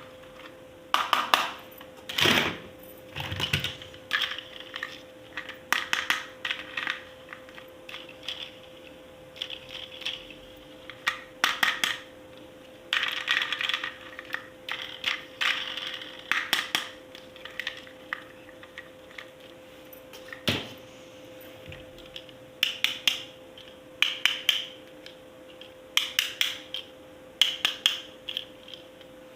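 Plastic toy pieces and packaging being handled: irregular runs of light clicks, clatters and rustles, with a faint steady hum underneath.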